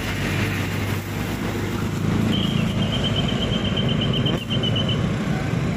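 A motor vehicle engine running steadily, the hum growing a little louder about two seconds in. Over it, a rapid run of high, evenly repeated chirps starts about two seconds in and lasts nearly three seconds.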